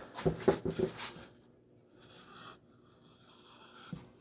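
Wooden bandsaw-box pieces being handled: a few sharp knocks and clicks of wood on wood in the first second, then faint rubbing and shuffling.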